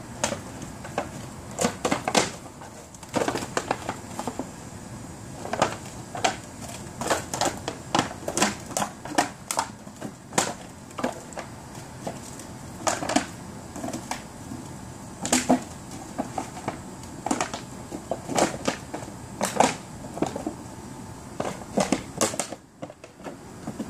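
Irregular crunching and crackling clicks of a plastic bottle being chewed and pushed about by a Labrador puppy, coming in uneven clusters with short gaps.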